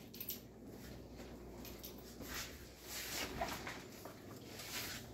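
Faint shuffling and rustling of someone moving about a room, a few soft scuffs over a low background hum.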